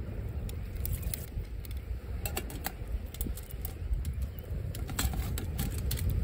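Wind buffeting the microphone as a steady low rumble, with scattered small clicks and taps throughout.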